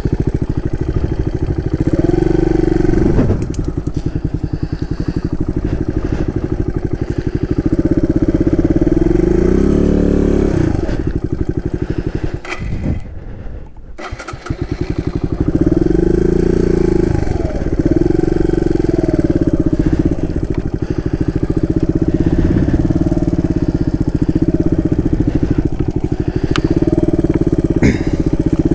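Suzuki DR200's single-cylinder four-stroke engine running under load, its note rising and falling repeatedly as the throttle opens and closes. About halfway through it drops low and quiet for a couple of seconds, then pulls again.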